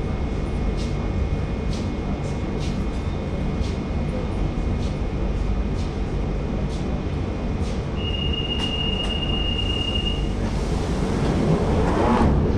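London Underground train running: a steady rumble with regular clicks of the wheels over rail joints, about one and a half a second. Just past the middle a single high wheel squeal holds for about two seconds, and near the end a louder whine swells up.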